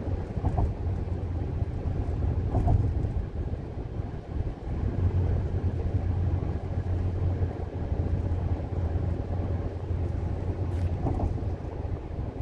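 Steady road and engine noise of a moving car, a continuous low hum with rushing noise over it.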